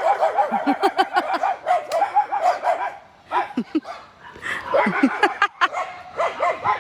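Several dogs barking at once in a rapid, overlapping chorus, easing off briefly about three seconds in and then starting up again.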